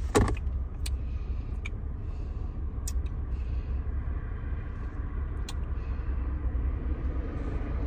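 Car engine idling, heard inside the parked car's cabin as a steady low rumble, with a few faint clicks scattered through it.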